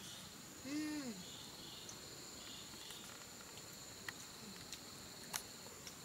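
Insects keep up a steady high-pitched drone. About a second in, a person makes a short hummed vocal sound that rises and falls in pitch. A few small clicks follow later.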